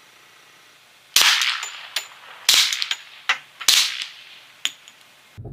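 Three suppressed shots from a Glock 20 10mm pistol fitted with a SilencerCo Hybrid 46 suppressor, firing Ammo Inc. 180-grain full metal jacket rounds. The shots are about a second and a quarter apart, each a sharp report with a short tail, and fainter clinks fall between them. They are really quiet, with no crack of the sound barrier, which the shooter takes as the sign that these rounds are subsonic.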